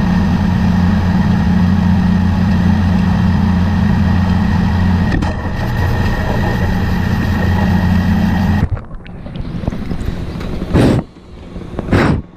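Pressure washer running and spraying: a steady, loud engine drone with a hiss of water that stops suddenly about nine seconds in. Two sharp knocks follow near the end.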